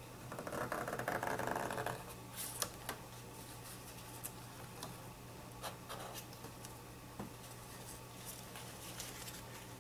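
Cloth rag rubbing over a pop-up headlight motor's gear housing, wiping grease off the surface where the lid will be glued, for about two seconds. Faint small taps and clicks follow, over a steady low hum.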